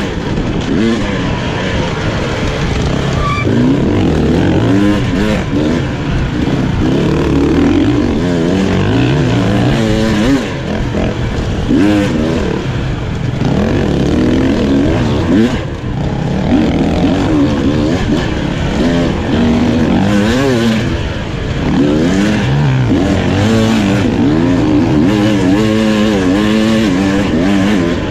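Beta RR 300 single-cylinder two-stroke dirt bike engine, heard on board, revving up and down continuously as the throttle is opened and closed, with a few brief drops in revs.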